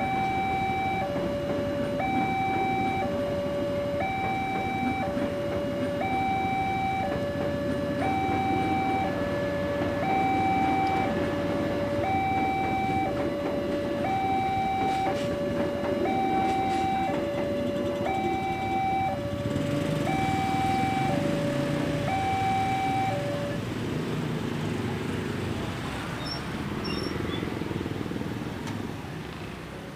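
Railway level-crossing warning alarm sounding a steady alternating high-low two-tone chime while a passenger train rolls past with a low rumble. The alarm stops about 23 seconds in, and motorcycle engines move off across the crossing near the end.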